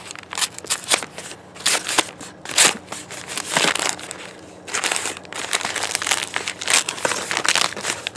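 A white postal mailer envelope being torn open and crumpled by hand: irregular crinkling and crackling in quick bursts.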